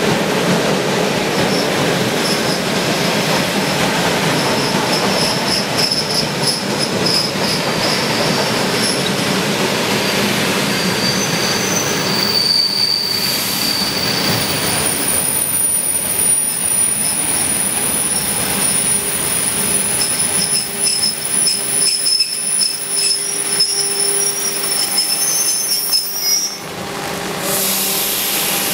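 Suburban electric multiple unit rolling slowly past, with a steady rumble from its cars. High thin wheel squeals come and go over it, and the rumble thins out in the last third.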